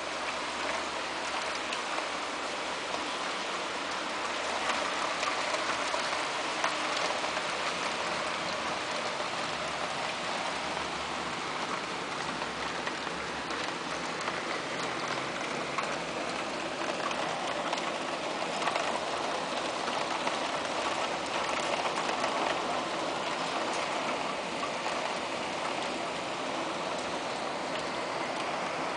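Heavy rain pouring down: a dense, steady hiss of falling water peppered with fine pattering drop ticks, swelling a little at times.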